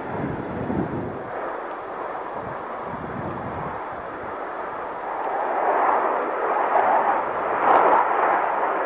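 Distant jet engine roar of Navy F/A-18 Hornets flying in formation: a steady rushing noise that grows louder about halfway through.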